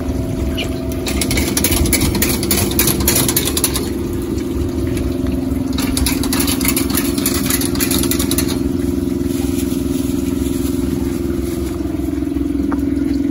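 Tenrit Foodtec automatic asparagus peeling machine running: a steady motor hum under water spraying, with two louder stretches of hissing a second in and about six seconds in.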